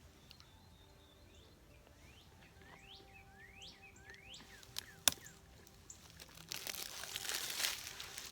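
Songbirds calling: a series of rising, upslurred whistled notes. There is a sharp click about five seconds in, and a louder stretch of rustling noise near the end.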